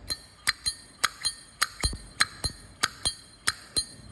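Zippo lighter lid repeatedly flicked open and snapped shut: a quick run of about fifteen sharp metallic clacks, each with a bright ringing ping.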